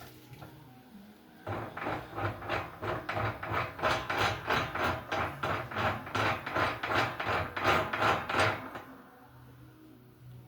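Repeated hand scraping or rubbing strokes in a quick, even rhythm, about three a second. They start about a second and a half in and stop about two seconds before the end.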